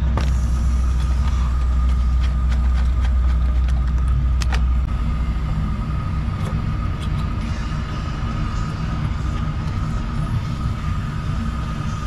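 Refrigeration vacuum pump running steadily, a deep rumble with a constant whine, evacuating the line set through hoses on the condenser's service valves. The deepest part of the rumble eases off about five seconds in, and a few light metallic clicks come around the middle.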